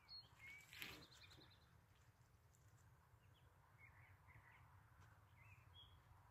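Near silence with faint, scattered bird chirps and a brief rustle about a second in.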